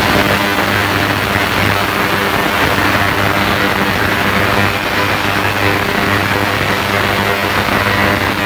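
Ultrasonic cleaner running with an aluminium crankcase half in its bath, heard as a loud steady hum over a broad hiss because the cleaner is interfering with the phone's microphone.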